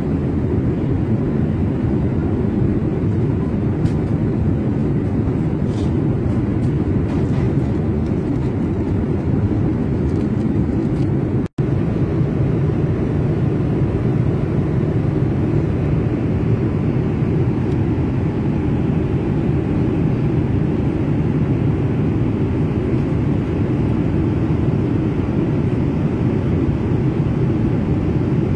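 Steady low roar of engine and airflow noise, as heard inside an airliner cabin. It drops out for an instant about eleven seconds in, then carries on unchanged.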